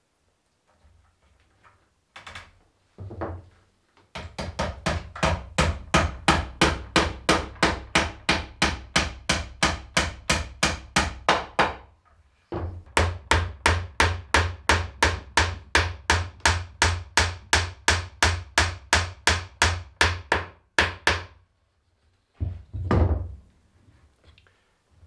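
Hammer striking the old chestnut wood table frame in two long runs of rapid, even blows, about four to five a second, with a brief break between them, then one heavier knock near the end.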